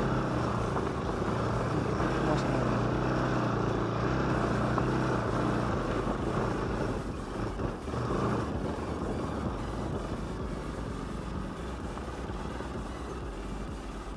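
Bajaj Pulsar RS 200's single-cylinder engine running at low revs as the motorcycle climbs slowly up a rough dirt track. It is steady and eases off a little towards the end.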